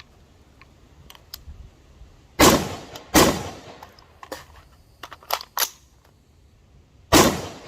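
AR-15 rifle fitted with a muzzle compensator and an H3-weight buffer firing: two shots under a second apart about two and a half seconds in, then a third shot near the end, each with a sharp crack and a ringing tail.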